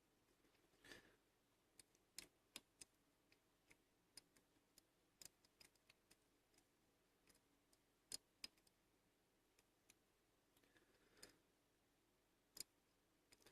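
Faint, scattered clicks of a lock pick working the pins and sidebars of a Bi-Lock rim cylinder, with two sharper ticks about eight seconds in.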